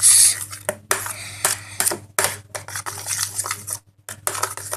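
Shampoo-and-salt slime being mixed in a bowl: a run of irregular short scraping, stirring strokes, with a brief pause near the end.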